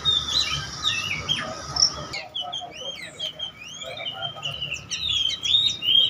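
Many caged songbirds chirping and whistling together, their short, quick calls overlapping in a busy chorus, which drops off abruptly for a moment about two seconds in.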